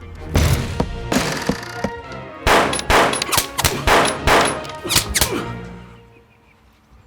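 Gunfire: a few shots in the first two seconds, then a rapid string of about a dozen shots starting about two and a half seconds in and stopping by about six seconds.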